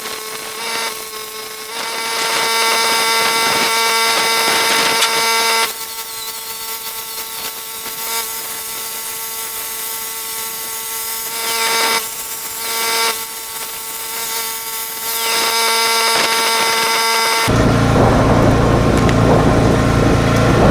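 MIG welder laying a weld bead with solid wire: a steady frying sizzle from the arc in long runs with short breaks between them. Near the end the welding stops and a low rumble takes over.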